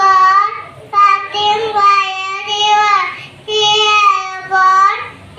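A young child singing in a high voice: a few long held notes in short phrases with brief pauses between them.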